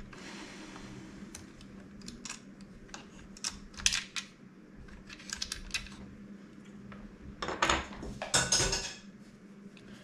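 Hard plastic parts of an opened Nerf blaster being handled and fitted: a run of light clicks and knocks, with louder clatters about four seconds in and again around eight seconds in.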